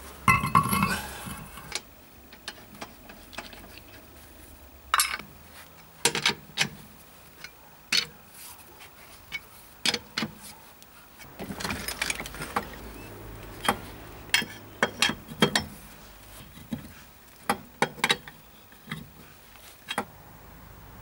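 Steel wheel being refitted and its wheel bolts run in and tightened with a four-way cross wrench: a loud metallic clatter near the start, then a series of sharp metal clicks and clinks from the wrench on the bolts.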